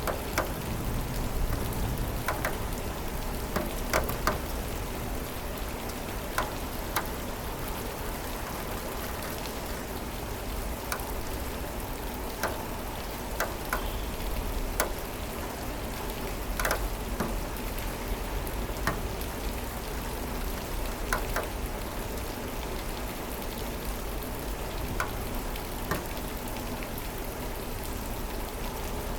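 Steady rain with individual drops tapping and plinking close by on a hard surface, scattered irregularly over the hiss of the downpour.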